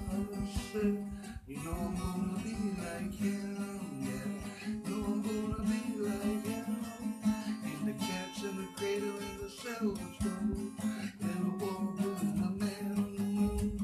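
Acoustic guitar strummed steadily in an instrumental passage of a song.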